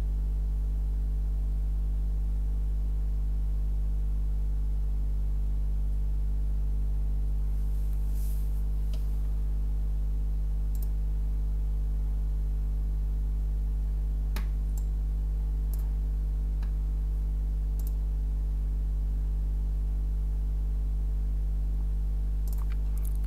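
Steady low electrical hum that does not change, with a handful of sharp computer mouse clicks scattered through, mostly in the second half.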